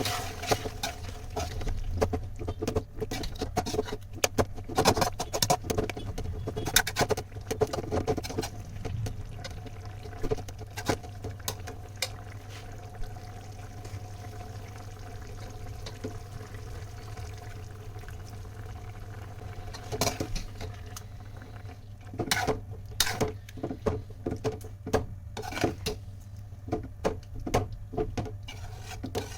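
Kitchen utensils working in a pot or bowl: irregular clusters of taps, clicks and scrapes, busiest at the start and again in the last third, over a steady low hum.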